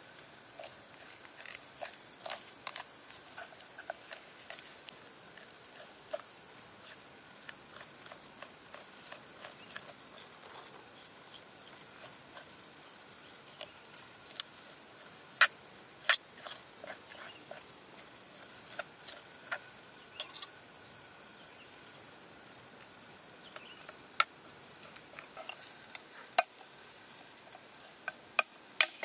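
A metal spoon scraping raw chitala (clown knifefish) flesh off the skin on a wooden board, with scattered sharp clicks and ticks, the loudest in the second half. A steady high insect drone, like crickets, runs underneath.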